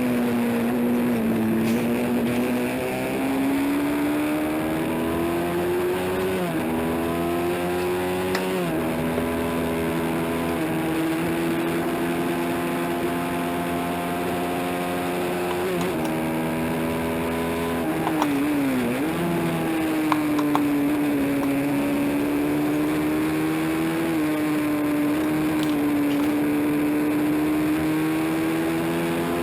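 Honda CB350 parallel-twin race engine running hard at high revs, its pitch climbing and easing off, with a few sudden steps in pitch as gears change.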